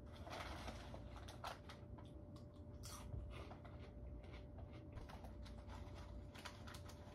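Faint, irregular light clicks and rustles over a steady low hum with a thin constant tone.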